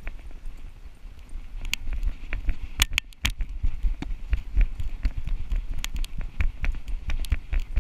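A giant schnauzer running over dry leaf litter, heard from a camera strapped to its chest: irregular thuds and crunching clicks of paws, with a low rumble from the harness and wind on the microphone. The sharpest knocks cluster about three seconds in.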